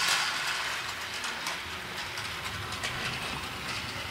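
Battery-powered Thomas & Friends toy train running along plastic track: a steady small-motor whir with light clicking from its wheels and gears.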